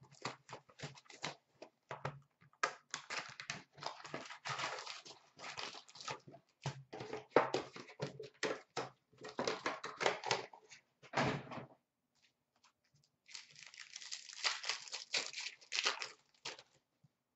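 Hockey card box and foil-wrapped card packs being handled: quick clicks, taps and rustles of cardboard and wrappers. About thirteen seconds in comes a few seconds of crinkling as a foil pack wrapper is torn open.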